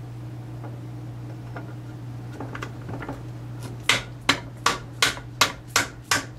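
Light handling clicks of transmission parts, then, from about four seconds in, a quick run of about seven sharp hammer taps, two or three a second, on a steel shaft being driven into a Borg-Warner T90 transmission's cast-iron case. A steady low hum runs underneath.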